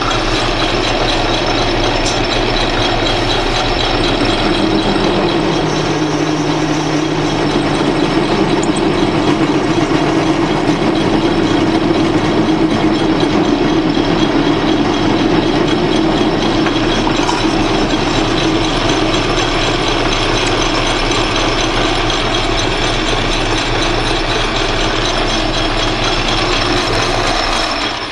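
Atlas metal lathe running in back gear, motor and gear train making a steady whirring drone, while a parting tool cuts off a short piece of brass rod. The running stops right at the end.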